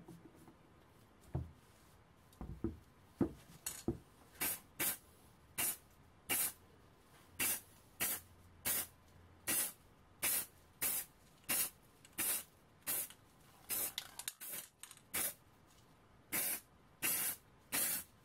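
Aerosol spray-paint can spraying black paint onto a metal part in short hissing bursts, one to two a second. A few light knocks in the first few seconds before the spraying starts.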